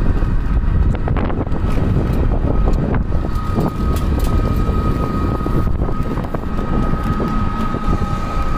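Road vehicle noise with wind buffeting the microphone: a loud, steady low rumble. A steady high tone joins about three seconds in and holds.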